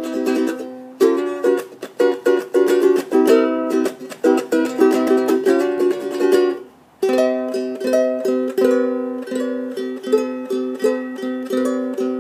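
Kala spalted maple ukulele being strummed, with quick, busy strumming at first, a short break about seven seconds in, then steadier, evenly spaced chords.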